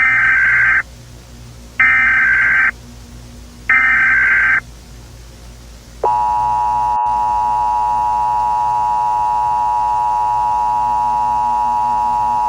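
Emergency Alert System (EAS) header tones: three short bursts of warbling digital data tones about two seconds apart, then, from about six seconds in, the steady two-tone EAS attention signal that holds without a break.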